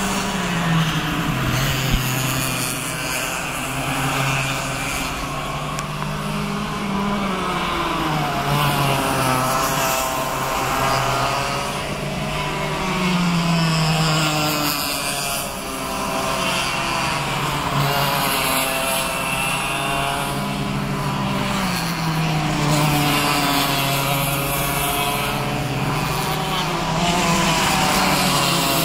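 Several cadet racing karts' small engines buzzing around the circuit, their notes rising and falling over and over as the karts accelerate and back off through the corners.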